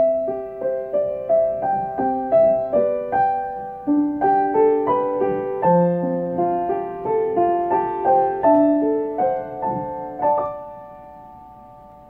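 Gentle piano music: a melody of short notes over light chords, ending on a chord about ten and a half seconds in that rings and fades away.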